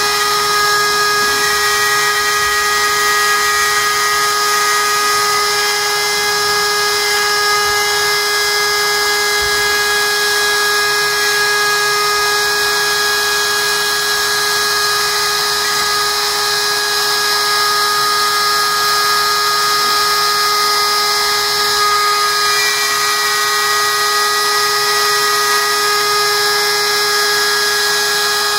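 DeWalt compact router on a Maker Made M2 hanging CNC's sled, running at speed while it cuts plywood: a steady high-pitched whine with several held tones and no breaks.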